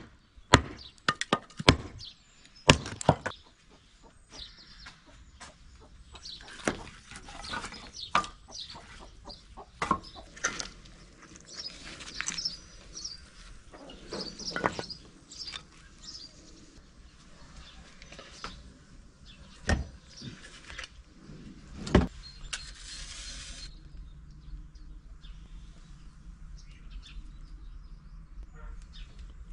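Hatchet blows splitting a log on a chopping block, about half a dozen sharp strikes in the first three seconds, followed by scattered wooden knocks and clatter as split firewood is handled and stacked, with two louder knocks later on. Birds chirp faintly in the background.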